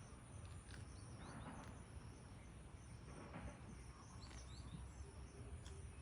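Faint open-field ambience: a steady high insect drone with a few short bird chirps, over a low rumble.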